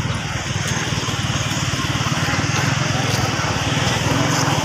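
Small single-cylinder motorcycle engine running steadily, heard from on board.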